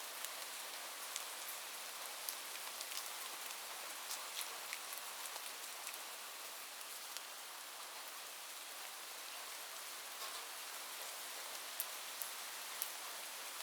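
Light, gentle rain falling steadily: a soft even hiss with scattered sharper drop ticks.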